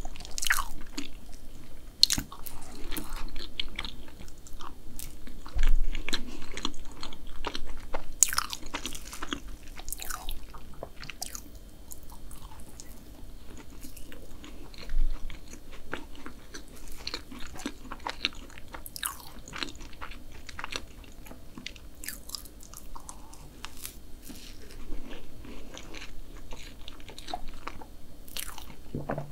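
Close-miked chewing and crunching of a macaron cake (macaron shells, cream and chocolate cake), with many short sharp clicks throughout from bites and from a metal fork against the small plate.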